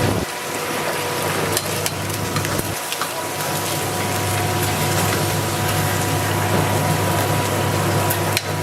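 A steady low machine hum under an even hiss, typical of a street-food stall with frying.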